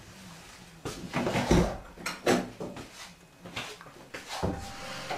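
Several separate knocks and thuds, spread out over about five seconds.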